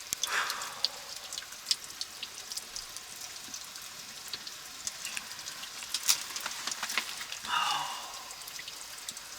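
Wood fire crackling, with fish cooking in the flames: irregular sharp pops over a steady hiss, swelling into a brief hiss near the start and again near the end.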